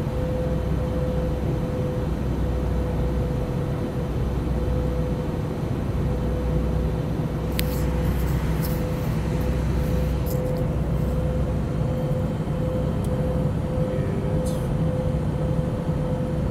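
Steady cabin drone of a jet airliner climbing through cloud: engine and airflow noise with a steady mid-pitched hum, and a few light ticks about halfway through.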